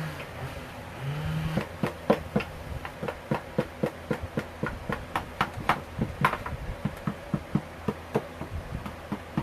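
A rapid run of hammer-like knocks, roughly three a second and uneven in strength, as the circular saw is forced into a too-tight wooden mount.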